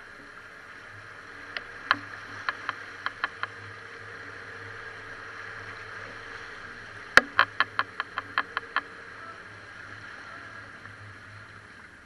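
Off-road Jeep's engine running steadily at low speed, with two quick runs of sharp clicks: about seven near two seconds in, and about nine, louder, around seven seconds in.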